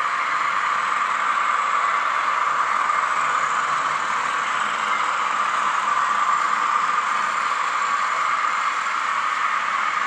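Sound-fitted N gauge model class 50 and class 47 diesel locomotives running, their Zimo sound decoders playing recorded diesel engine sound through small onboard speakers. The sound is steady and thin, with little bass.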